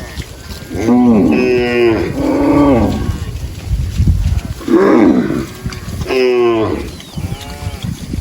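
Cattle mooing, about six calls one after another, each rising and then falling in pitch.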